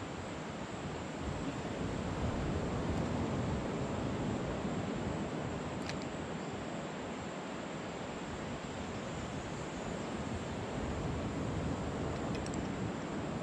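Steady rushing of wind and surf, swelling a little about two seconds in and again near the end, with a faint tick about halfway through.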